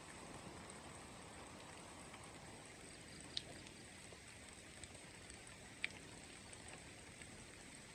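Faint steady rain, with two sharp drip-like ticks partway through.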